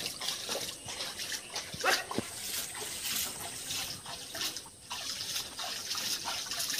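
Water splashing and sloshing as hands stir and scoop in a small tarpaulin-lined tub pond: a run of irregular splashes, one of the louder ones about two seconds in.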